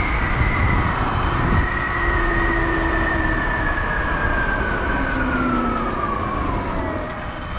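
Sur Ron electric dirt bike's motor whine, one high tone falling slowly and steadily in pitch as the bike slows down, over a constant low rumble of wind on the microphone.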